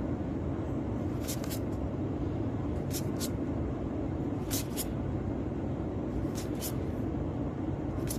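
Magic: The Gathering cards being slid off a booster-pack stack one at a time, making brief paper swishes in quick pairs about every second and a half. A steady low hum runs underneath.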